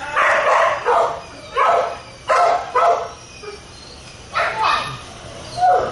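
Dog barking in short, loud bursts, about six in all, irregularly spaced.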